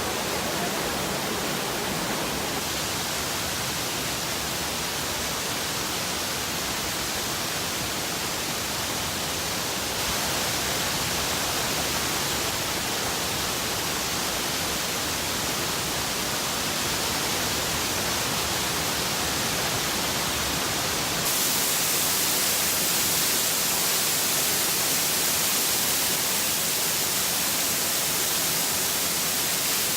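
Rainbow Falls' water rushing in a loud, steady hiss with no pitch or rhythm. It changes level abruptly a few times, growing louder and brighter about two-thirds of the way through.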